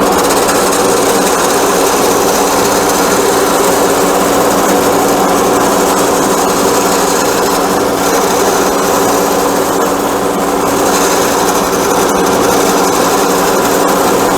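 Wood lathe running steadily with a round-tipped turning tool cutting into the spinning wood spindle: a steady motor hum under the even hiss of the cut.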